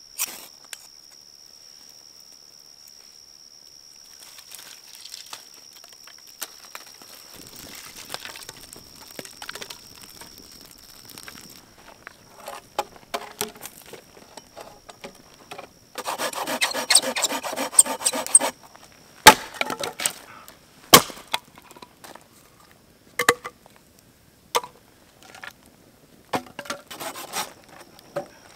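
Dry firewood sticks being worked with a knife: rustling and scraping, then a couple of seconds of fast, rhythmic scraping a little past halfway, then a string of separate sharp wooden cracks and snaps. A thin, steady high tone runs underneath much of it.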